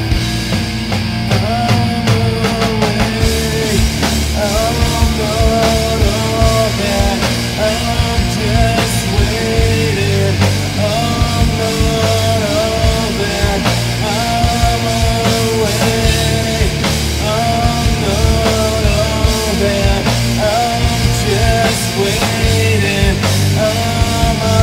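Rock band playing loud and steady: electric guitar, bass guitar and drum kit, with a melodic riff repeating about every two seconds.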